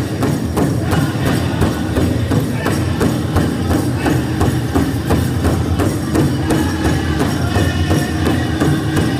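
Powwow drum group playing a chicken dance song: a big drum struck by several drummers in a steady, even beat, with the singers' voices over it.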